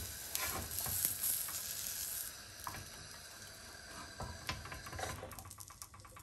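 An egg omelette sizzling on a hot flat griddle, the hiss dying away after about two seconds, with a few light taps and scrapes of a spatula as the omelette is lifted off and set down on a plate.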